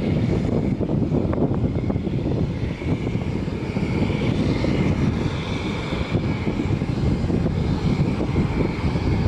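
Steady aircraft engine noise with a heavy low rumble, and a fainter higher whine that swells in the middle.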